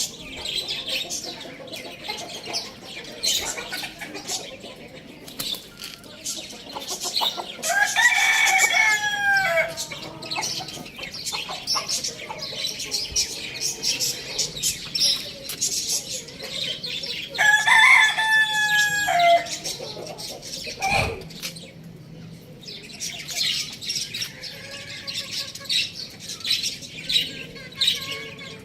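Chickens: a rooster crows twice, about eight seconds in and again about eighteen seconds in, over hens clucking and many short high chirps.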